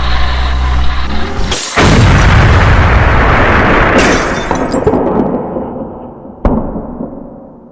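A motor vehicle's engine running steadily, cut off about a second and a half in by a loud crash-like boom that fades away slowly over several seconds, with one sharp click near the end.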